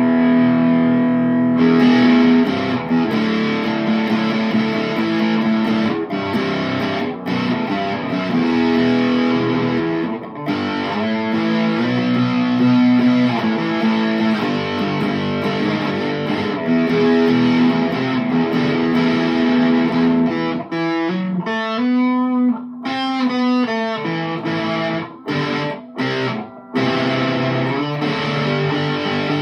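Electric guitar with a Seymour Duncan Pearly Gates bridge humbucker, played through a Boss DS-2 distortion pedal set to full distortion into a Boss Katana amp's clean channel: heavily distorted sustained chords. About two-thirds of the way through there is a run of quick single notes, then a few short stops between chords near the end.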